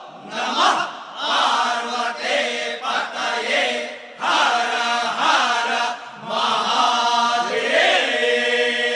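Hindu devotional chanting by voices in short phrases with brief breaks, over a steady sustained drone.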